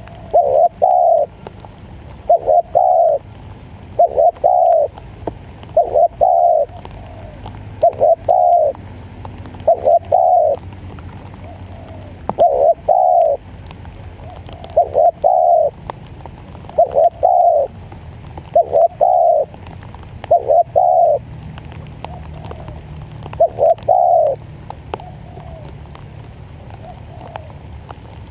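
Spotted dove cooing: a short phrase of two or three quick notes, repeated about every two seconds, about a dozen times, stopping a few seconds before the end. A steady low hum runs underneath.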